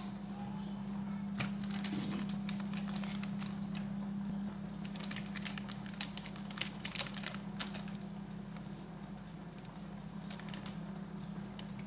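Soft plastic baby-wipes packet crinkling and crackling in a run of short crackles as it is picked up and turned over in the hands, over a steady low hum.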